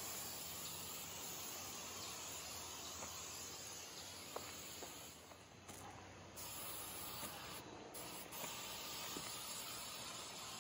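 Aerosol can of Sawyer permethrin spray hissing in long continuous blasts, breaking off briefly twice past the middle.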